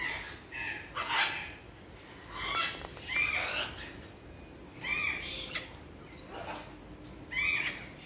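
Parrots in an aviary squawking, repeated harsh calls coming every second or two.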